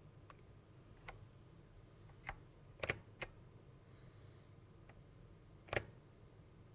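A few scattered single keystrokes on a NeXT keyboard with factory-lubed black (pine) Alps switches: separate sharp clacks about a second apart, the loudest a quick double about three seconds in and another near the end.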